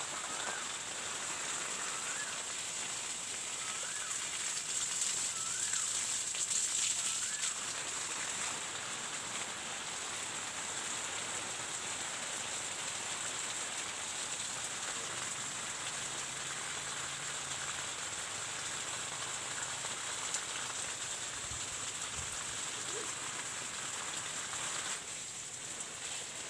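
Water jetting from a garden hose and spattering onto soil and leaf litter: a steady, rain-like hiss and patter.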